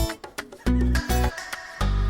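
Background music with a steady beat: heavy low notes repeating about once a second with light percussive clicks between.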